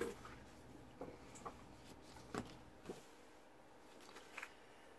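Faint rustling and a few light clicks of paper items and packaging being handled while a boxed collector's set is unpacked.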